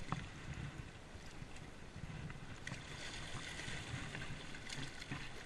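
Sea water washing and lapping against shore rocks, with wind on the microphone and a few faint ticks.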